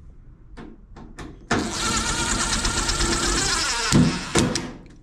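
Power drill driving a quarter-inch hex screw into a dryer panel: a motor whine lasting about two and a half seconds that stops sharply, with a few light clicks of handling before and after.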